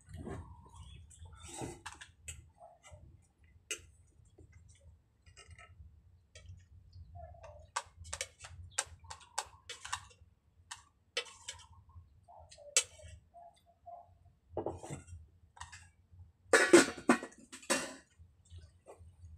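Scattered light clicks and taps over a low steady hum, with a louder rustling clatter near the end.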